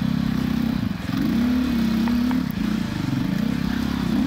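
KTM 500 EXC's single-cylinder four-stroke engine running under load on a rocky climb, its revs dipping and picking up again twice as the throttle is worked. A couple of light clicks sound about two seconds in.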